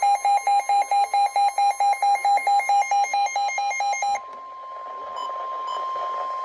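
Weather alert radio going off: the receiver's buzzer beeps rapidly, about five beeps a second, then stops about four seconds in. A steady, higher alarm tone takes over, the NOAA Weather Radio warning alarm tone that announces an incoming warning.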